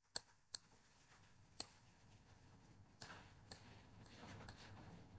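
Near silence with a few faint computer mouse clicks, three of them within the first two seconds and fainter ones later.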